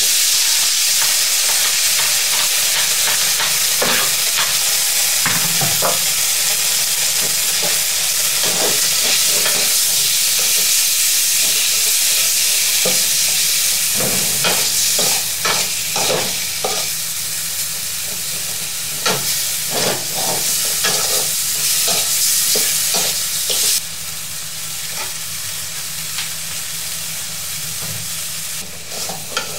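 Small pieces of marinated beef sizzling loudly in hot oil in a metal wok. The sizzle starts suddenly as the meat goes in, and a metal spatula scrapes and knocks against the pan as the pieces are stir-fried. The sizzle drops a little about three-quarters of the way through.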